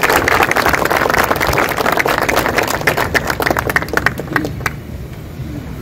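A small crowd applauding, the clapping thinning out and stopping about five seconds in.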